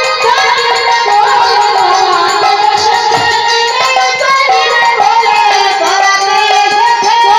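Live folk music: a woman singing through a microphone over hand-played two-headed barrel drums, with steady held notes underneath and many quick drum strokes.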